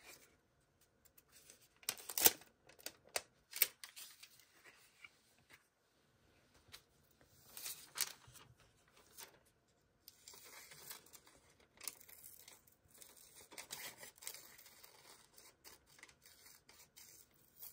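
Paper and sticker sheets being handled at a desk: irregular rustling and tearing sounds, with a few sharp clicks around two and three and a half seconds in, and longer continuous rustling in the second half.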